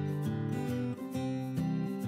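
Background music with a plucked guitar playing chords that change every half second or so.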